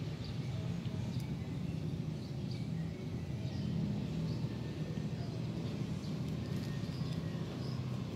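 Outdoor background: a steady low rumble like a running engine or distant traffic, with faint, short high chirps scattered through it.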